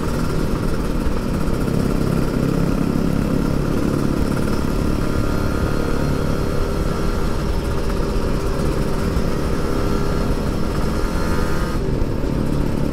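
Kawasaki Ninja RR 150cc two-stroke single-cylinder engine running at a steady cruising speed, with wind rushing over the helmet-mounted microphone. Its note changes near the end as the higher part of the engine sound falls away.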